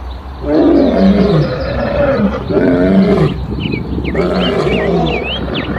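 Male lion roaring: a series of deep roars and grunts, about one a second.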